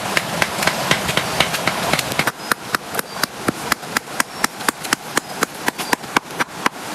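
Steady rain hiss with sharp taps. About two seconds in the hiss drops and rapid, even taps, about five a second, take over.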